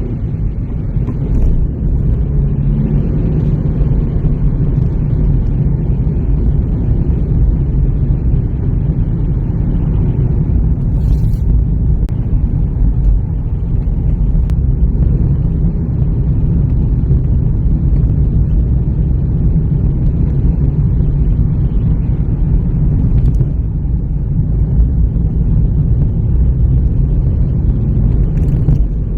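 A car driving at a steady pace: a continuous low rumble of engine and road noise with no change in speed.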